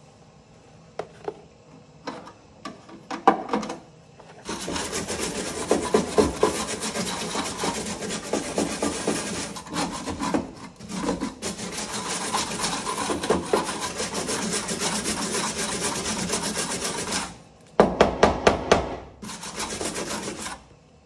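Scraping on the freshly welded sheet-metal floor pan: a long continuous rasping stretch, then two shorter bursts near the end, after a few light knocks at the start.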